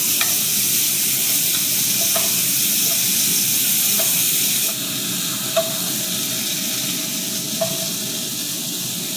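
Salt-and-pepper-crusted steaks sizzling in a very hot pan of garlic butter while being basted, with a few light clicks over the steady sizzle. The sizzle drops a little about five seconds in.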